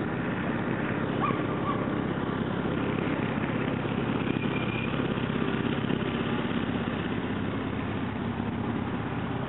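2003 Chevy Avalanche Z71's V8 engine idling steadily.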